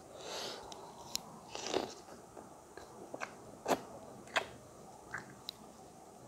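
Close-miked eating sounds: wet chewing and mouth smacks with scattered sharp clicks, and the squelch of stiff maize porridge (makai ko aato) being kneaded into chicken curry by hand in a steel plate.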